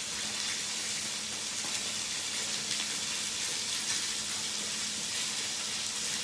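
Oil sizzling steadily in a hot frying pan.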